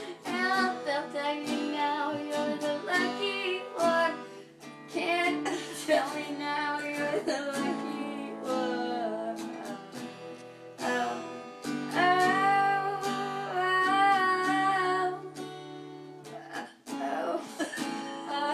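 A person singing along with a strummed acoustic guitar, the sung phrases broken now and then by sudden hiccups; a long held note comes in the second half.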